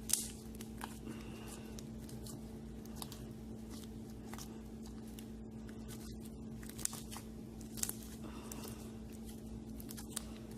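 Homemade white-glue slime being kneaded and pulled by hand, making scattered sticky clicks and small crackles at irregular moments, one sharper one near the start. The slime is being worked to set after a few more drops of boric water.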